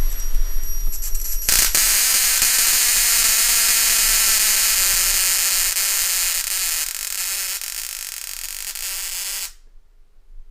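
Handheld ozone generator discharging while its trigger is held: a loud electrical hiss-buzz that starts about a second and a half in. It eases off a little later on and cuts off suddenly near the end.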